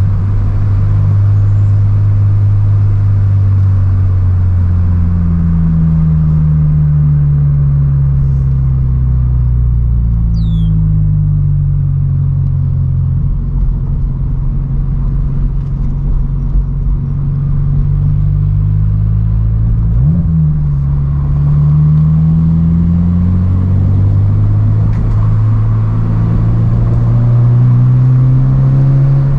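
Subaru BRZ's flat-four engine pulling through the gears on a drive, its note rising and falling as the car accelerates and eases off, with one brief sharp rev spike about twenty seconds in.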